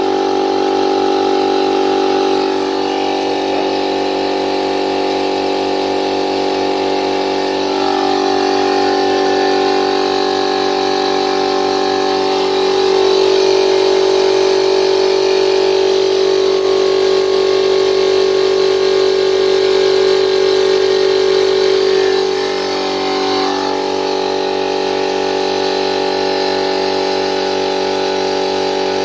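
Aldi oil-lubricated piston air compressor running steadily as it builds up tank pressure, its tone shifting a few times.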